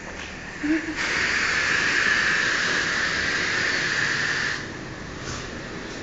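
High-pressure water jet from a self-serve car wash spray wand, hissing loudly for about three and a half seconds before cutting off suddenly.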